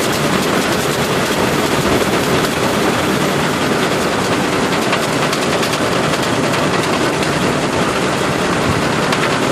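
Claas Dominator 78 combine harvester running steadily while harvesting corn, a dense mechanical rattle and clatter over the engine.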